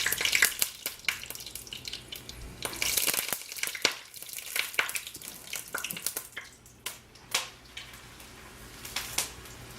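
Potato latkes frying in a pan of hot oil, the oil sizzling and spitting with sharp crackling pops, busiest for the first three seconds and then thinning to scattered pops.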